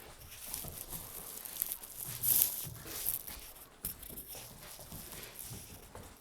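A puppy playing and biting at a toy: irregular rustling and scraping as it tugs and scuffles, with a louder rustle about two seconds in.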